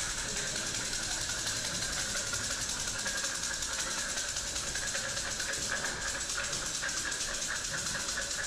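Steady running noise of a moving vehicle: an even hiss and rumble with no break or change.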